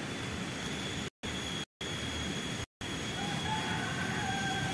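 Steady rush of a small river flowing over a low ledge and stones, cut off by three short dropouts between about one and three seconds in.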